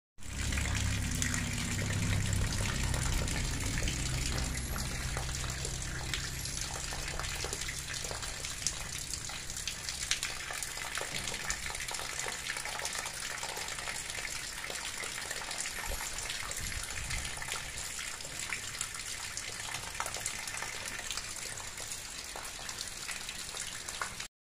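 Rain falling steadily, with a stream of runoff gushing from a roof gutter spout. A constant hiss dotted with many small drop ticks, and a low rumble that is strongest in the first few seconds.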